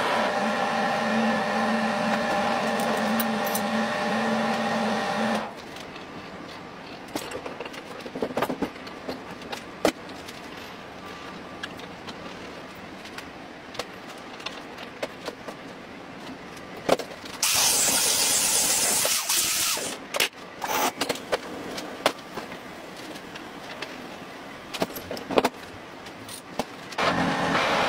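Metal lathe running with a steady tonal whine as it cuts, for about five seconds; then quieter workshop handling of a hydraulic bottle jack with scattered metal clicks and taps, broken by a loud noisy burst of about two seconds; the lathe starts up again near the end.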